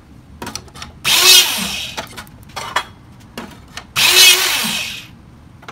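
Electric-hydraulic hole punch running through two cycles, each about a second long, punching holes in 1/8-inch steel angle iron. Metal clanks of the angle iron being handled come before, between and after.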